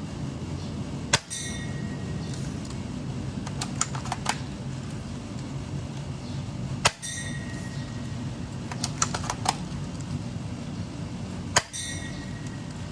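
Airsoft gun fired three times, about five seconds apart, each shot a sharp crack followed by a brief metallic ring. Between the shots comes a quick run of small clicks.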